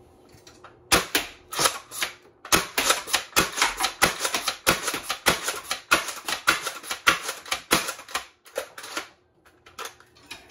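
3D-printed pump-action foam-dart blaster being pumped and fired over and over to empty its magazine. It makes a fast run of sharp plastic clacks that starts about a second in, runs thickest through the middle and thins out near the end.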